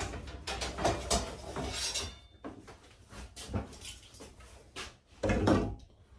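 Thin wooden strips being handled and set down on a workbench: a run of clattering wood-on-wood knocks, then a few single knocks, the loudest near the end.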